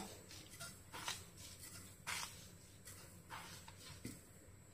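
A handful of faint, scattered clicks and soft scrapes: a metal spoon and sugar granules landing in a dry nonstick frying pan as sugar is spooned in for caramel.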